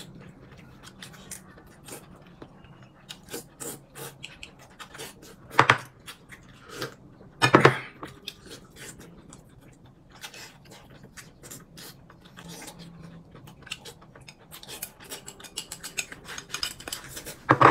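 Eating at a table: chopsticks and utensils clicking and scraping against bowls and plates, with chewing. Two louder clatters come about six and seven and a half seconds in, and a quick run of clicks builds near the end.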